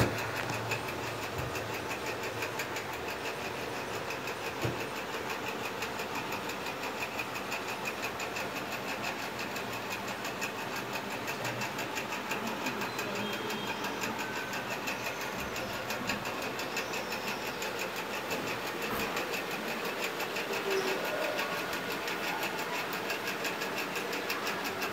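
A machine running steadily with a fast, even pulse and no change in level.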